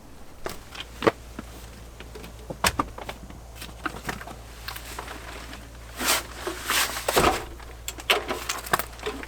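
Irregular clicks and light knocks with short bursts of rustling near the end, as of camping gear being handled and set down.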